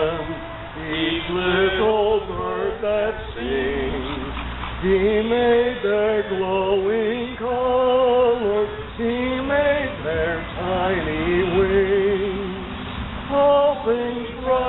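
A small outdoor congregation of men and women singing a hymn together, with long held notes.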